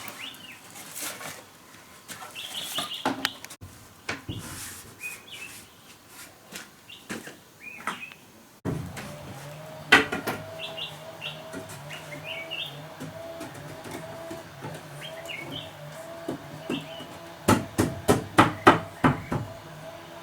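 Tool strikes on wood, scattered knocks and a quick run of about six strikes near the end, with small birds chirping between them.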